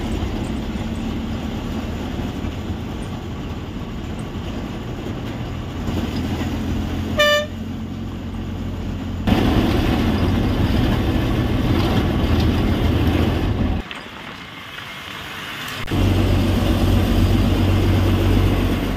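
Bus engine and road noise heard from inside the cabin of a moving APSRTC express bus, with one short horn toot about seven seconds in. The noise drops away briefly around fourteen seconds in, then comes back louder.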